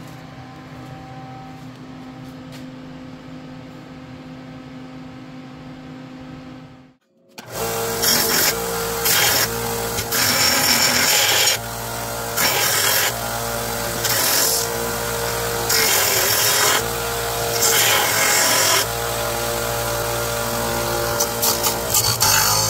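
A low steady hum. About seven seconds in, a bench belt-and-disc sander starts up loud, grinding steel in repeated surges as the welded angle-iron truck frame is pressed against the sanding disc to grind down the welds.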